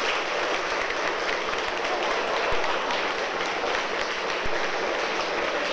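Audience applauding: dense, steady clapping, with two low thumps partway through.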